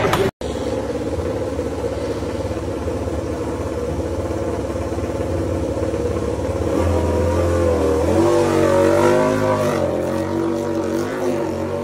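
Aprilia RS-GP MotoGP race bike's V4 engine running at a steady idle. From about eight seconds in, the revs rise and fall in small waves as the throttle is blipped.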